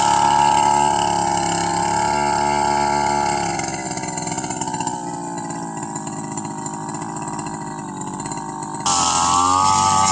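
Two-stroke brush cutter engine running at high revs, easing back and sounding fainter about halfway through, then suddenly loud again near the end.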